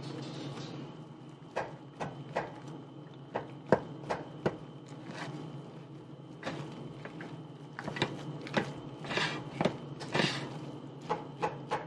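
A plastic rice paddle tapping and scraping against a rice cooker's non-stick inner pot as a whole cooked tomato is mashed and stirred into the rice and vegetables: irregular soft clicks and knocks, with a couple of longer scrapes near the end.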